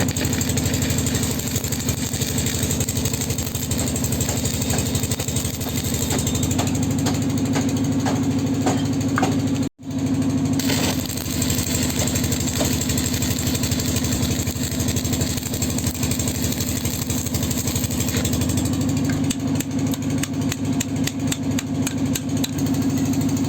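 Tractor engine idling steadily, with an even, rapid firing pulse. The sound cuts out for an instant about ten seconds in.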